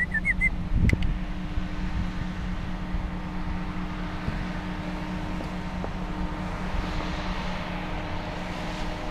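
Truck engine idling, a steady hum heard from inside the cab. A quick run of high chirps comes right at the start.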